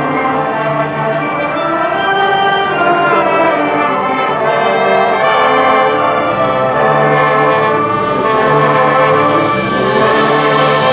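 High school marching band playing, its brass section sustaining full chords with low brass below, the level slowly building.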